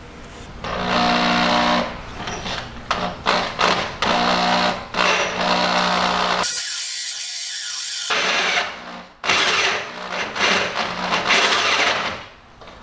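Corded electric drill turning a hole saw through sheet metal: the motor whines in spurts as the trigger is worked, with the saw teeth grinding against the metal. About halfway the drill stops for a second and a half and a steady hiss is heard instead.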